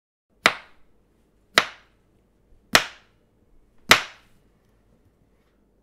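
A chef's knife chopping a cucumber on a cutting board: four sharp chops, evenly spaced about a second apart.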